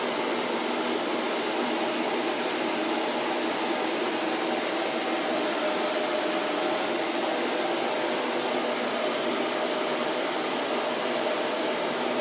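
Electric vacuum cleaner running at a constant, unchanging level: an even rushing noise with a faint steady whine.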